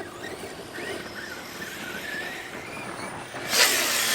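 Electric RC trucks' motors whining as the trucks run. Near the end a loud rushing noise comes in suddenly and stays.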